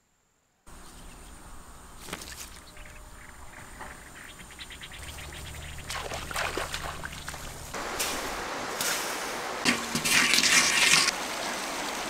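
Running, splashing water that grows louder toward the end, with a few short rustles and knocks in the first half.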